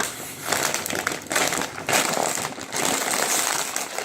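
Crinkling of a crisp plastic chip bag as it is handled, in irregular spurts.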